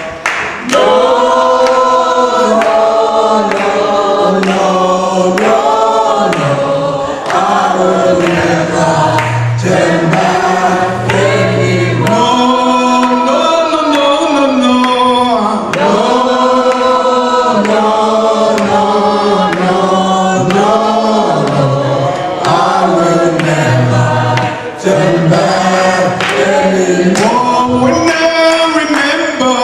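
A choir of many voices singing a gospel worship song in phrases that rise and fall, over a moving bass line.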